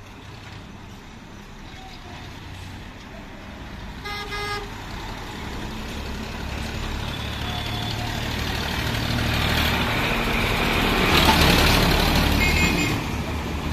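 Sonalika tractor's diesel engine running as it pulls a loaded brick trailer up the road and passes close by, growing steadily louder to a peak about eleven seconds in and easing off a little after. A vehicle horn toots briefly about four seconds in.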